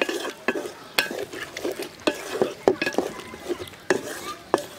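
Wooden spatula stirring a wet tomato and fish curry in an aluminium pot, knocking and scraping against the pot's sides at an irregular pace, about once or twice a second.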